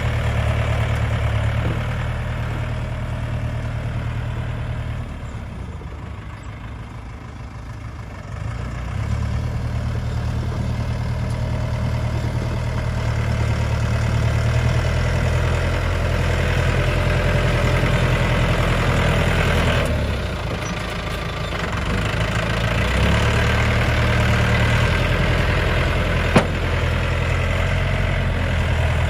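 Tractor engine running steadily. It eases off twice and then picks up again, and there is a single sharp click near the end.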